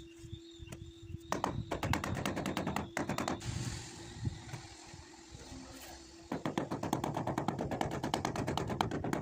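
Rubber mallet tapping ceramic floor tiles in rapid strings of light knocks, several a second, bedding them into the tile adhesive. There are two runs of tapping, the first about a second in and the second starting about six seconds in, with a quieter scraping hiss between them.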